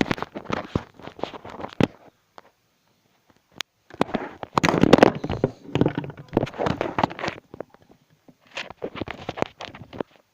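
Crackling, clattering handling noise in three bursts of quick clicks, with short quiet gaps between them.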